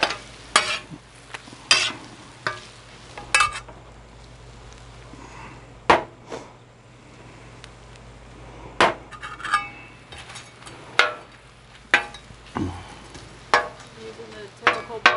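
Metal spatula and scraper striking and scraping the steel cooktop of a Blackstone gas griddle in sharp, irregular clanks as bacon and eggs are chopped and turned, over a faint steady sizzle.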